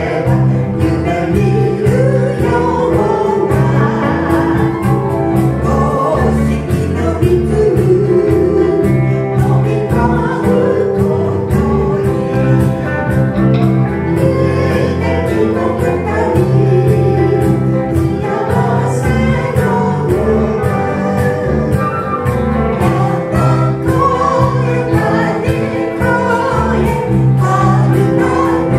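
Live band playing a Japanese popular song with guitars, keyboard and cajon accompanying singing, keeping a steady beat.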